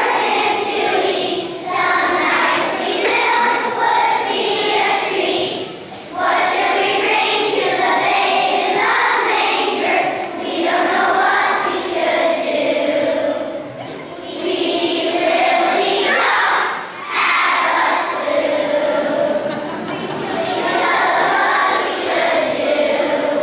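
A choir of young children singing together in unison, phrase after phrase, with brief breaks between lines about six seconds in and again near seventeen seconds.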